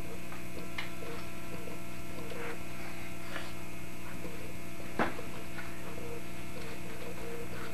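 Steady electrical hum with faint knocks and taps from a wooden rolling pin working play dough on a tabletop, one sharper knock about five seconds in.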